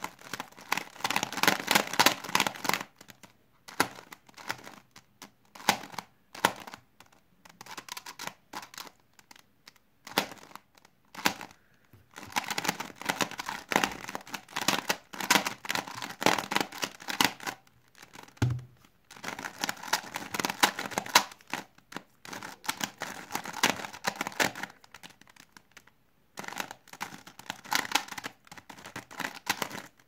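Plastic 3x3 Rubik's cube being turned fast by hand, its layers clicking and rasping in quick runs of a few seconds with short pauses between. A single low thump about two-thirds of the way through.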